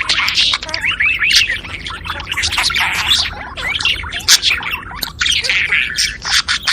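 Budgerigars warbling and chattering: a continuous, dense stream of quick chirps, short pitch glides and scratchy notes.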